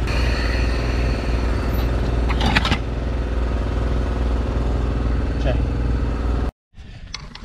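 A motor running steadily with a low, even hum that cuts off suddenly near the end.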